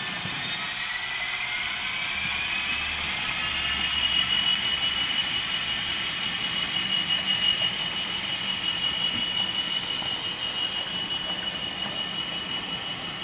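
OO gauge model freight locomotive with DCC sound pulling away: its engine note climbs for the first few seconds, then holds a steady high whine over a low hum.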